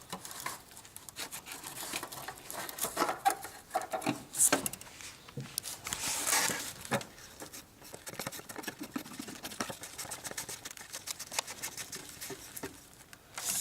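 Hands working the oil filter cap and its new cartridge back into the engine's filter housing: short clicks, scrapes and rubbing of small parts, with a couple of louder rustles and a quick run of small clicks near the end.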